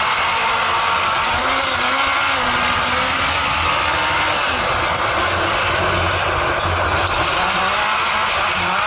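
Honda CBR1000F inline-four motorcycle engine in an off-road buggy running under load, its pitch rising and falling with the throttle, under a steady loud rush of noise.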